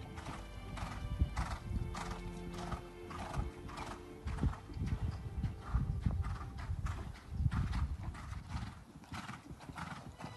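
Hoofbeats of a ridden horse cantering on a surfaced riding arena, in an even repeating rhythm, with background music playing.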